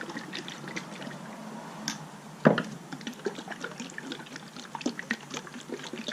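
Automotive paint sloshing and pouring in its container, with small clicks and a single sharp knock about two and a half seconds in.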